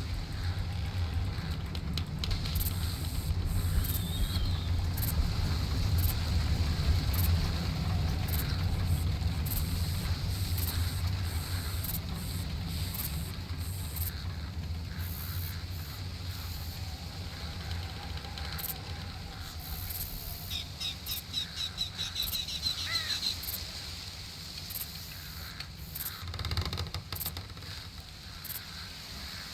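Outdoor nature ambience: a steady low rumble of wind, with scattered faint clicks and a bird calling in a quick run of repeated high notes about 21 seconds in.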